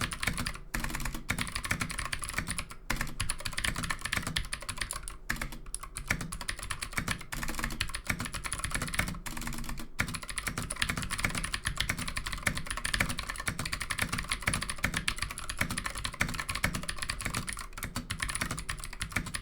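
Ducky Mini mechanical keyboard with clicky Gateron Green switches being typed on fast and continuously, a dense run of key clicks with a few brief pauses, around two seconds in, about five seconds in, and near ten seconds in.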